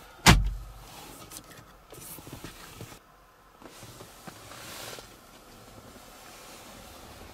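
The plastic lid of a 2014 Opel Mokka's dashboard storage compartment is snapped shut with a single sharp clack at the very start. Faint handling and rustling follow.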